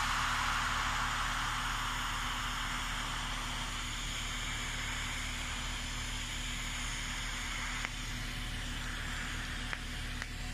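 TIG welding arc on a pipe joint hissing steadily, with a low electrical hum underneath; the hiss slowly grows quieter and a couple of faint clicks come in the last few seconds.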